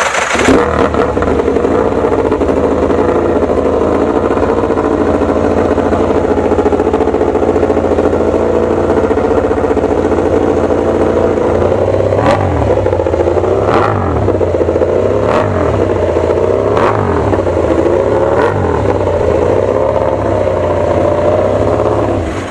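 MotoGP racing motorcycles running at high revs, their engines holding a steady high pitch. From about halfway there are several quick dips and rises in pitch, like bikes passing or shifting, before the sound fades out.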